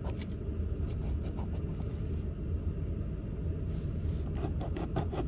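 A coin scraping the scratch-off coating from a Crossword lottery ticket in short repeated strokes, coming thickest near the end, over a steady low hum.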